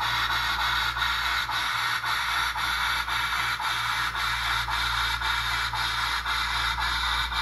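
Model Shay locomotive's SoundTraxx Tsunami2 sound decoder playing steam sounds through its small speaker: a steady hiss with a faint regular beat about twice a second, over a low hum.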